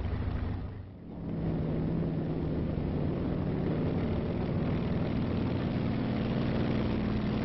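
Steady engine drone of tanks on the move, with a low hum that steps up in pitch about halfway through; the sound dips briefly about a second in.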